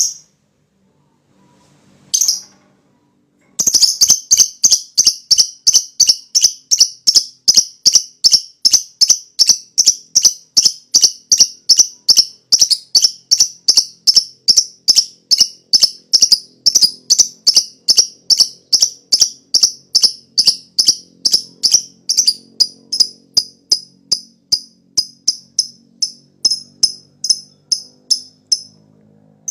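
Lovebird giving a long 'ngekek' chattering call: two single shrill calls, then a rapid run of sharp, high-pitched 'kek' notes, about three a second for some 25 seconds, easing off a little near the end.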